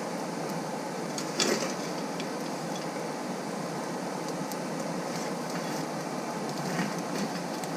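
Hair dryer used as a forge blower, running steadily and pushing low-pressure air into a coal forge fire. A short knock about a second and a half in and a smaller one near the end, with scattered faint crackles from the coal.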